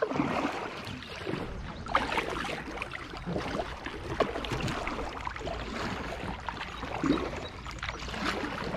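Kayak paddles dipping and splashing in calm water, with irregular drips and splashes as the blades pull through and lift out.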